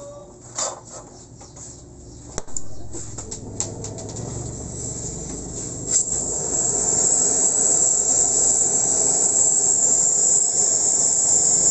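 Oxy-acetylene welding torch being lit and adjusted: a few clicks and knocks, a sharp pop about six seconds in, then the flame's hiss growing louder into a steady loud hiss as the flame turns from yellow to blue.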